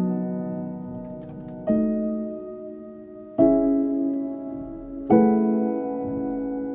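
Background music: slow, ringing chords, a new chord struck about every second and a half to two seconds and left to fade.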